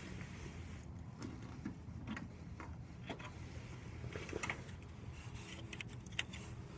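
Faint outdoor background: a low steady hum with scattered, irregular faint clicks and ticks.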